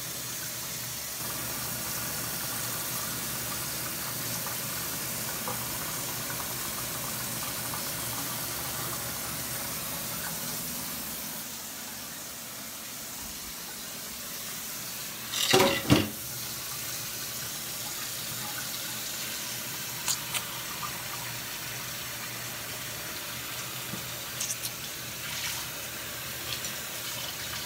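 Tap water running steadily into a sink, easing slightly partway through. About halfway through come two sharp knocks close together, like dishes or utensils clattering, then a few lighter clicks.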